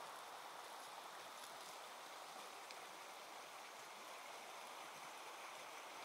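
Faint, steady outdoor ambience: an even rushing hiss with no distinct events.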